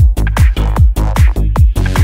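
Progressive Goa trance music: a four-on-the-floor kick drum at about 150 beats per minute, with bass notes between the kicks and hi-hats above.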